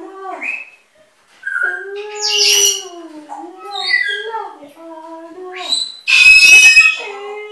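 Pet parrots chattering in a speech-like babble, mixed with whistled notes, pausing briefly about a second in, then a loud screech about six seconds in.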